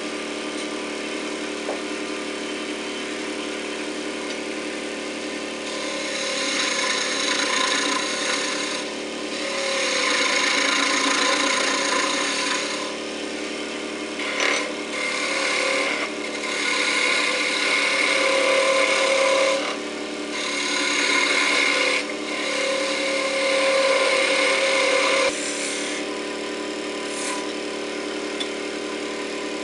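Wood lathe running with a steady motor hum while a hand-held turning chisel cuts the spinning plum-wood blank, a scraping hiss over the hum. The cutting comes in several long passes with short breaks, starting a few seconds in and stopping near the end, leaving the lathe running on its own.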